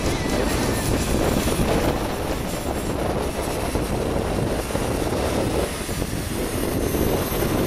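JetCat P80 model jet turbine running at low power as the RC jet taxis: a steady rushing noise with a faint high whine that sinks slightly near the end.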